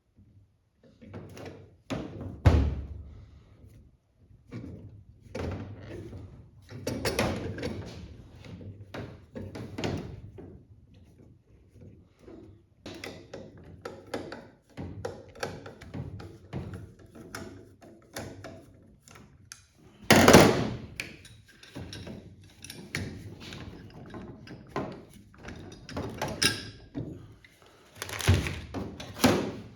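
Irregular knocks, clanks and clatter of metal parts and tools being handled while a clutch master cylinder is fitted to a race-car pedal assembly. The loudest thunk comes about twenty seconds in, with other heavy knocks near the start and near the end.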